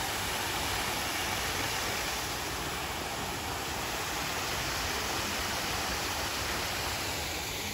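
Small recirculating garden waterfall pouring over rocks into a shallow pool: a steady rushing of water.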